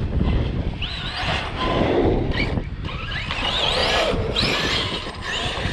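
Arrma Outcast electric RC truck's brushless motor whining, rising in pitch several times as it is throttled up, over low rumbling wind noise on the microphone.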